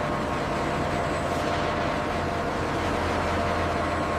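Steady machinery noise: an even hiss over a low hum, with a few faint steady tones above it.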